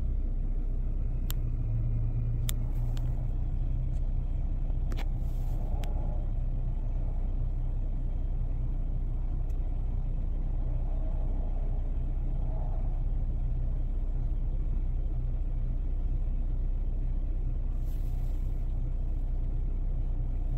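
Mercedes-Benz car engine idling steadily, a low even drone heard from inside the cabin. A few short, sharp clicks come in the first six seconds.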